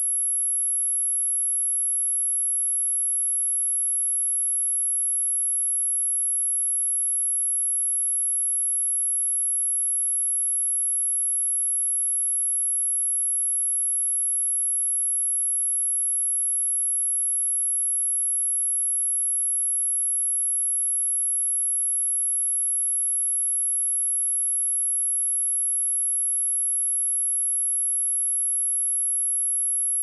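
A steady, pure sine tone at 11,185 Hz, one high-pitched whistle held unchanged: a speaker test tone, the kind played to check speakers or headphones and to shake water and dust out of a speaker.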